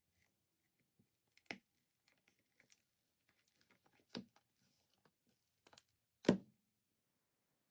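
Small objects and packaging being handled close up: scattered light clicks and rustles, with three louder short knocks spread across it, the last one the loudest.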